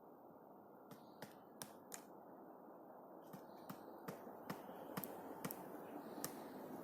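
Black woodpecker pecking at a tree trunk: single sharp wooden knocks, not a drumming roll, a few spaced knocks, then from about three seconds in a steadier run of about two knocks a second, faint over a steady background hiss.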